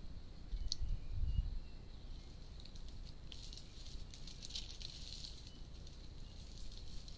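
Dry leaf litter crackling and rustling as Sykes's monkeys move over it, thickest from about three to five and a half seconds in. A few dull low thumps about a second in are the loudest sounds.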